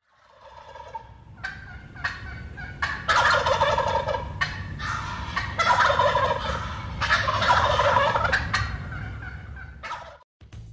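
Wild turkey gobbler gobbling again and again, starting faint and short, then three long, loud gobbles from about three seconds in.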